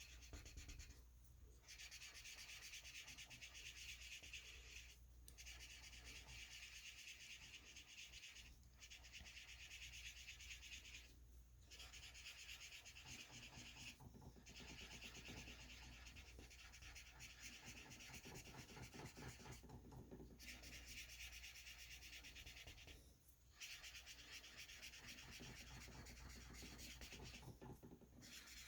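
Felt-tip marker colouring back and forth on paper: a faint, continuous scratchy rubbing that stops for a moment every few seconds as the pen lifts.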